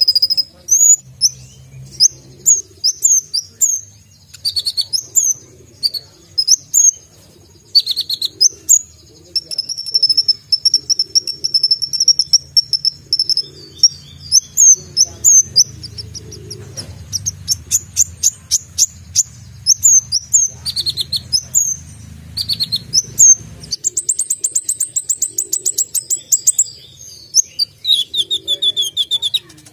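Van Hasselt's sunbird (kolibri ninja) singing a fast, high-pitched song of sharp chirps and trills. Partway through it holds one long high note, and near the end it runs into a rapid series of ticks.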